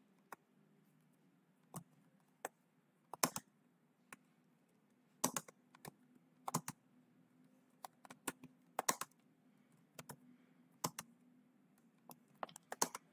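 Typing on a computer keyboard: irregular keystroke clicks in short clusters, with pauses between them.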